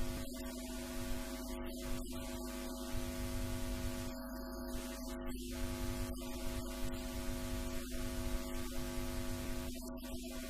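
Steady electrical hum: a constant drone made of several steady tones, with a faint hiss beneath.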